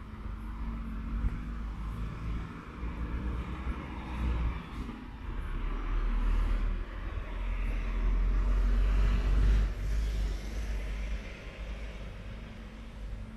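Street traffic with a low rumble. A passing vehicle swells to its loudest about two-thirds of the way through, then fades.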